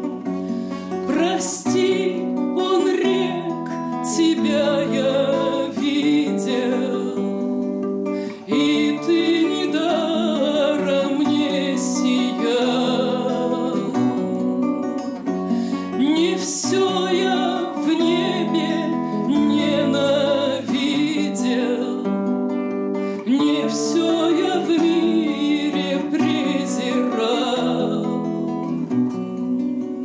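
A woman singing slowly to her own classical guitar accompaniment.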